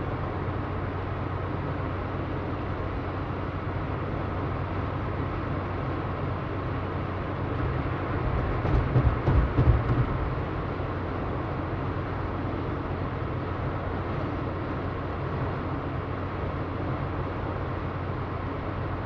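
Car driving, heard from inside the cabin: a steady low rumble of engine and road noise. About halfway through it grows louder for a second or two with a cluster of low thumps, then settles back to the steady rumble.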